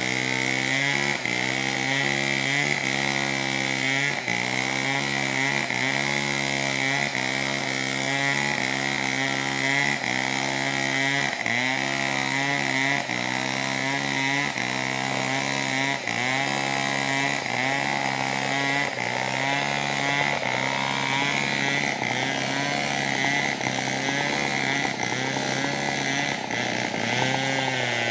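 Two-stroke chainsaw running at steady high revs, its pitch dipping briefly about once a second.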